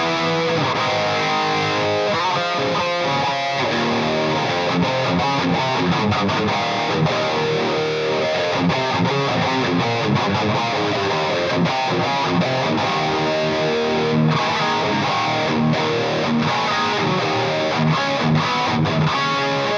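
Electric guitar played through a Marshall Vintage Modern 2466 100-watt valve head, with a Dimension C chorus and a Fender delay pedal switched in: a continuous passage of chords and single notes with no pause.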